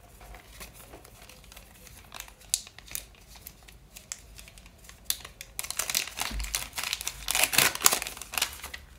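Small handmade paper surprise packet being handled, with faint scattered paper rustles and clicks, then crinkled and torn open about five and a half seconds in, with dense crackling paper that is loudest near the end.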